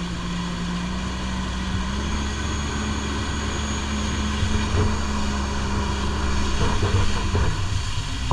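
Jet ski engine running at steady speed under way, a constant drone with rushing noise over it. The engine note rises slightly about two seconds in and falls away near the end.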